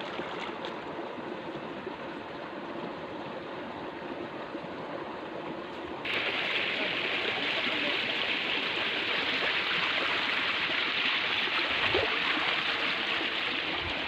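Flowing stream water rushing steadily, with a sudden jump to a louder, brighter rush about six seconds in.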